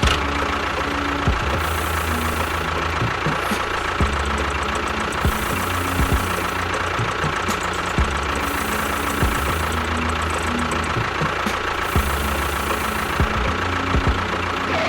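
Small motor of a miniature DIY tractor machine running steadily with a constant whine and a rattling, buzzing noise.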